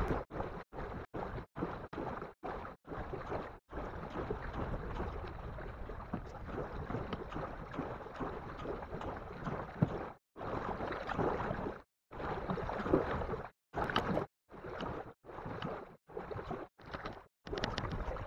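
Water and wind noise from canoeing on a lake, cut into short pieces that drop abruptly to silence, with a longer unbroken stretch in the middle.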